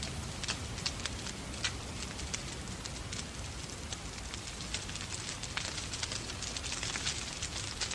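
Wood fire in a fireplace crackling, with frequent sharp irregular pops over a steady low rumble and hiss, mixed with the sound of falling rain.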